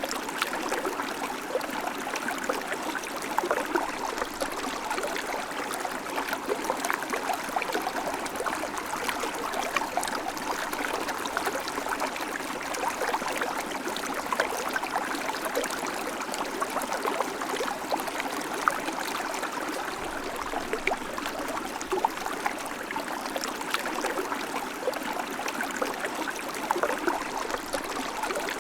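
River water flowing steadily over stones, a continuous rushing with many small splashes and gurgles.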